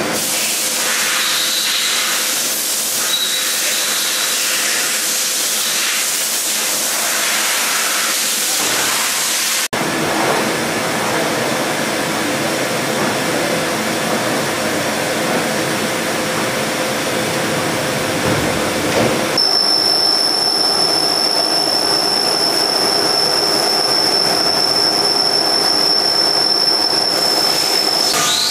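Steady mechanical hiss and hum of a powered-up Mazak VTC 20 BM Plus CNC vertical machining centre. A steady high whine joins about two-thirds of the way through.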